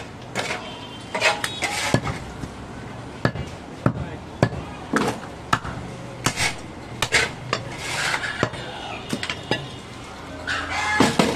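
Long butcher's knife chopping goat meat on a wooden chopping block: irregular sharp chops, roughly one or two a second.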